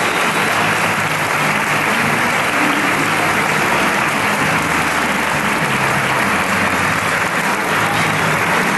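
Audience applauding steadily, with no break in the clapping.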